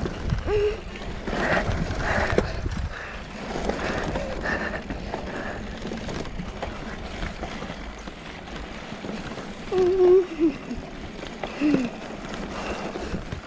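Uneven outdoor rumble and rustle on a handheld microphone, with a high voice briefly calling out twice about ten and twelve seconds in.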